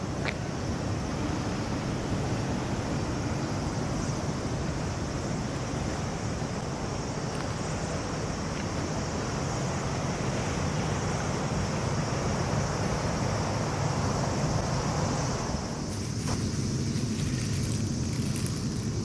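Wind buffeting the microphone over the sound of sea water against a seawall. A few seconds before the end the wind noise thins out.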